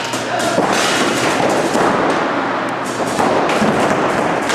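Paintball markers firing in rapid, overlapping strings of sharp pops.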